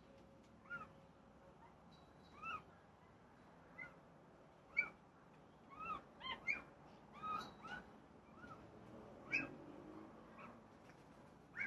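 Birds calling: about a dozen short, arching calls at irregular intervals, the loudest a little under five seconds in.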